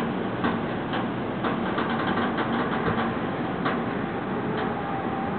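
Construction and traffic noise: a steady machine hum with irregular knocks and clatter, a few a second at times.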